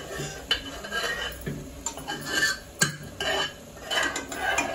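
A steel spoon stirring marinated chicken pieces in a metal pressure cooker, scraping and clinking against the pot, with irregular knocks and the sharpest clink about three seconds in.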